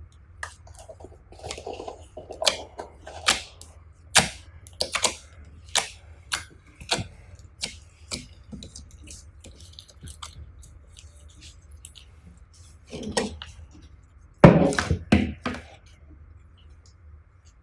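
Slime being squished and kneaded by hand, giving irregular sticky clicks, pops and squelches, with a louder run of squelching near the end.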